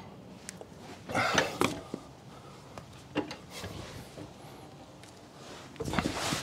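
A few soft knocks and scrapes, scattered through a quiet stretch: a steel jack stand being handled and set in place under the vehicle.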